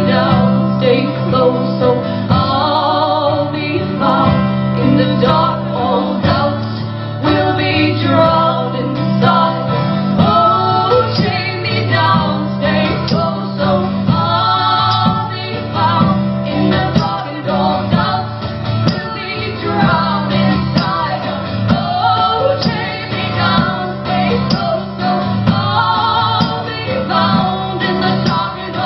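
Live song performance: women singing, the voices wavering with vibrato, over a steadily strummed acoustic guitar.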